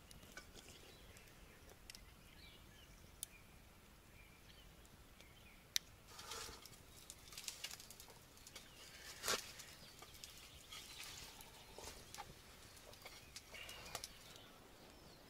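Wood fire crackling quietly, with a few sharp pops and soft rustling.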